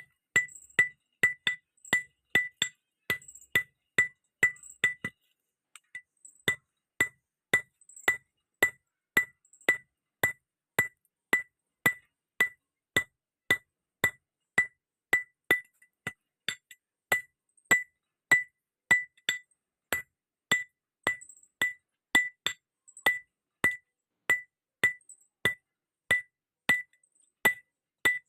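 Blacksmith's hammer striking steel on an anvil in a steady forging rhythm of about three blows a second, each blow ringing with a short metallic note. The blows pause for about a second some five seconds in, then carry on.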